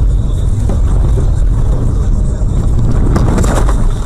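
Heavy low rumble of a car on the road heard from inside the vehicle, with a cluster of sharp crackling noises about three seconds in.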